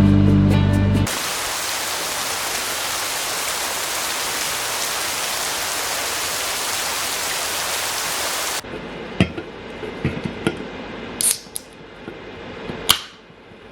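A steady, even hiss that cuts off abruptly, followed by a few light clicks and clinks of household handling. Music is heard briefly at the start.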